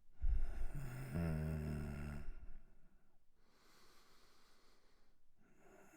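A sick man's laboured breathing: a loud breath with his voice sounding in it for about two seconds, then a quieter, airy breath.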